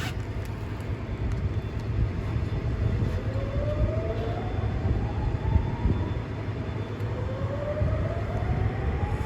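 Steady low engine rumble with a siren sweeping slowly upward in pitch twice, each rise lasting about three seconds, starting about three seconds in.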